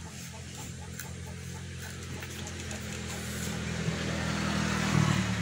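A motor vehicle's engine runs with a steady low hum and grows louder, loudest about five seconds in.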